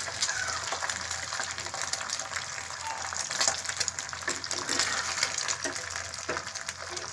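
Egg frying in hot oil in a pan, a steady crackling sizzle, with a few light scrapes and taps of a spatula in the second half.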